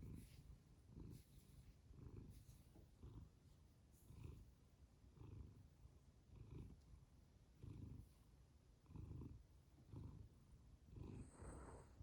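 Domestic cat purring softly, the low rumble swelling and fading with each breath about once a second. A brief higher-pitched sound comes just before the end.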